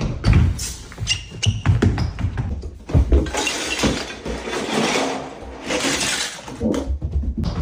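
Loose plastic Lego bricks rattling and clattering as they are swept into and tossed around a plastic storage bin, with a few knocks near the start.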